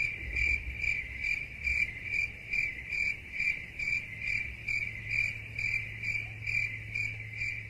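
Crickets chirping in an even rhythm of about two chirps a second: the stock 'crickets' awkward-silence meme sound effect.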